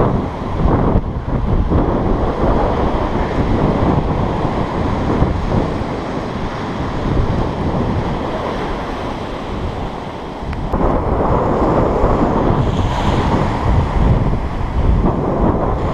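Wind buffeting the microphone over the steady wash of small breaking waves running up a sand beach, rising again a little after the middle.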